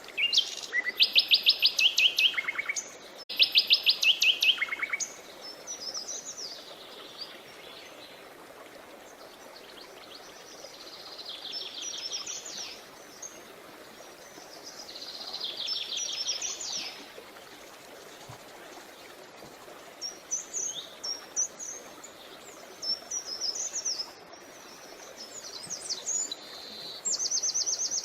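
Songbirds singing: fast, rattling trills of rapid high notes, two loud ones in the first five seconds, then softer trills and short chirpy phrases every few seconds, with a faint steady background hiss.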